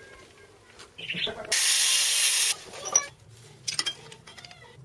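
A loud hiss lasting about a second, then a scatter of light clicks and taps of metal tools being handled against steel tubing on a workshop floor.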